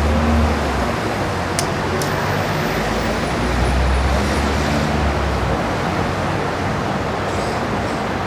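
Steady road traffic noise with the low rumble of vehicle engines, swelling slightly near the start and again around four seconds in. Two short clicks come about a second and a half and two seconds in.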